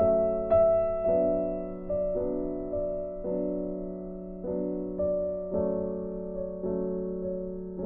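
Background music: slow, gentle piano playing sustained chords, a new chord or note struck every half second to a second and left to fade.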